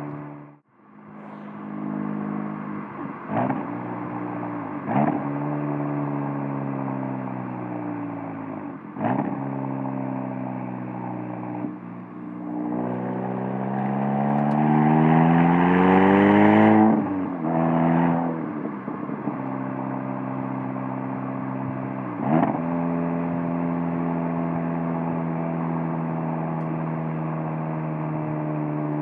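2017 VW Golf R's turbocharged 2.0-litre four-cylinder heard through a Borla S-type valved catback exhaust from a bumper-mounted microphone, accelerating and dropping in pitch through several manual gear changes. After a brief drop-out near the start, a long hard pull rises to its loudest about two-thirds through, then the exhaust settles into a steady cruising drone.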